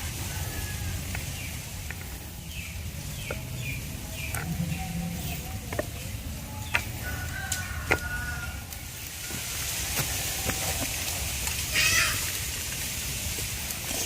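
Chickens clucking and calling in short, separate notes, several of them quick falling calls in a run, with scattered sharp clicks and a low steady hum underneath.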